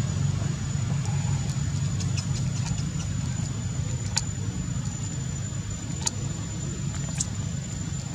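Steady low hum of an engine idling, with a thin high steady tone above it and a few faint sharp clicks.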